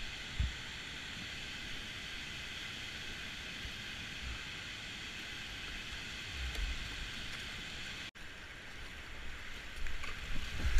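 Steady rush of whitewater and a nearby waterfall, with a few dull low thumps as the kayak and paddle work through the current. The sound cuts out for an instant about eight seconds in.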